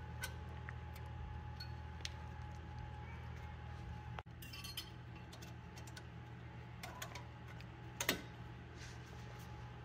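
Brake pads sliding and seating into the stainless steel abutment clips on a front caliper bracket: a few light metallic clicks and clinks, the loudest about eight seconds in, over a steady low hum.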